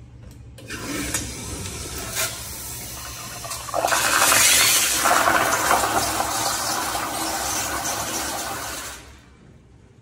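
Sloan flushometer toilet flushing: a rush of water that starts about a second in, becomes much louder about four seconds in, and dies away about nine seconds in as the bowl refills.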